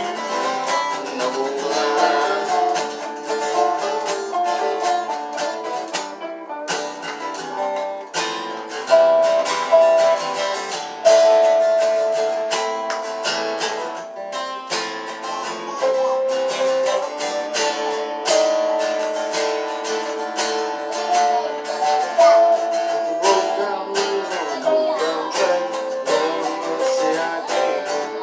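Acoustic guitars playing an instrumental break in a folk tune: strummed rhythm under a picked lead melody with some held notes.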